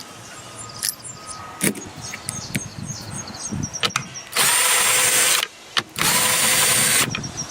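A handheld power tool runs in two short bursts of about a second each, with a brief pause between them, after a few seconds of light knocks and clicks from handling.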